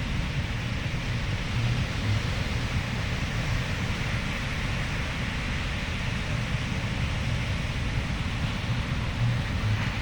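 Steady rushing noise of wind on the microphone over ocean surf at the shore, with a low rumble.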